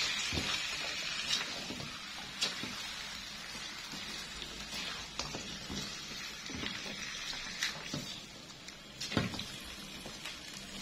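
Pieces of smoked stingray (ikan pe) frying in a wok with a steady sizzle, stirred with a spatula that gives scattered light scrapes and taps against the pan.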